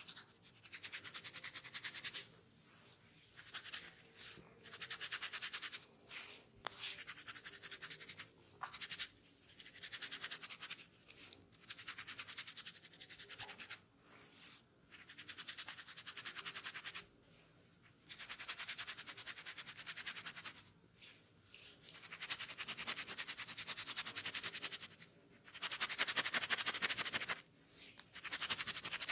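Close-up scratching of a dry, dandruff-flaked scalp through the hair: bouts of rapid, raspy strokes, each lasting one to two seconds, with short pauses between them, as the flakes are loosened.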